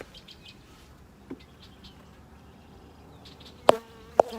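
Honey bees buzzing faintly around an open hive, the hum growing steadier near the end, with two sharp knocks close together near the end as the hive is handled.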